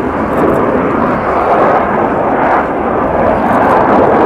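Avro Vulcan B2 delta-wing bomber in flight, its four Olympus turbojet engines giving a loud, steady jet roar that swells slightly near the end as it pulls up into a steep climb.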